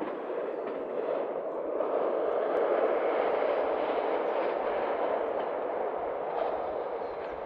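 VT628 diesel multiple unit accelerating away along the line, its engine and running noise a steady rumble that swells to a peak about three seconds in and then slowly fades as it draws off.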